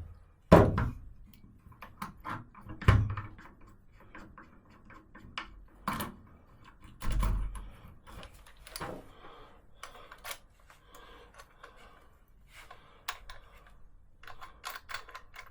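Irregular clicks and knocks of a Makita 3711 trim router being handled and its parts worked by hand, with a few heavier thumps about half a second in, near three seconds and around seven seconds. The motor is not running.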